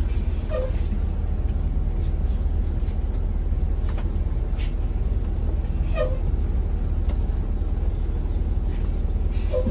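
Coach's diesel engine idling steadily, heard from the driver's cab, with a few short hisses, one about halfway and one near the end.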